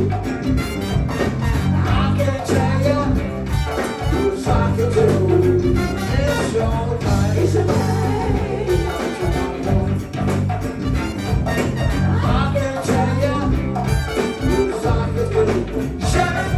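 Live go-go band music: a steady bass line and driving percussion with instruments and some singing over the top.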